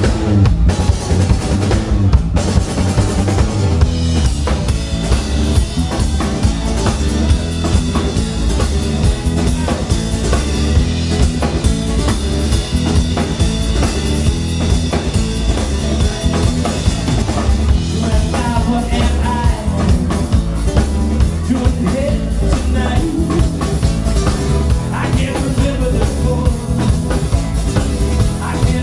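Three-piece band playing instrumentally: acoustic guitar, electric bass guitar and a drum kit with kick, snare and cymbals keeping a steady beat.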